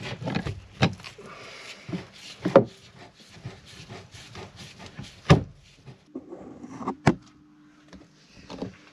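Steel F-clamp being fitted and tightened against timber: a run of knocks and clicks with rubbing of metal and wood, the loudest knocks about two and a half and five seconds in.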